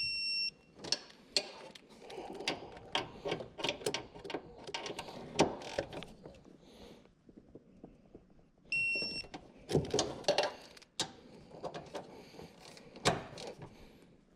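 Hand-tool and parts-handling noise: irregular clicks, knocks and scrapes of metal and plastic, with a short high beep twice, about nine seconds apart.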